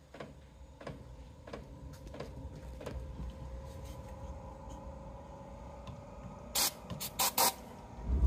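Chinese diesel parking heater running its combustion fan, a steady hum with a faint whine, while the fuel pump ticks about every two-thirds of a second. Near the end come four short hissing sprays of ether starting fluid into the combustion air intake, then a low thump right at the end.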